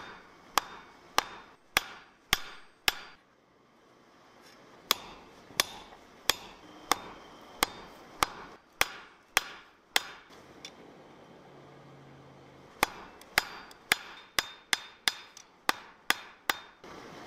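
Blacksmith's hammer striking a red-hot steel bar on the anvil horn: sharp metallic blows, one every half second or so, in three runs with short pauses between. The last run comes quicker, about three blows a second.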